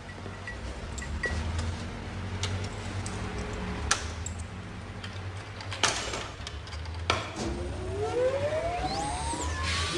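Jukebox being operated: a few sharp clicks from its selection buttons and mechanism over a low steady hum. Near the end, a rising whine as the machine's mechanism moves.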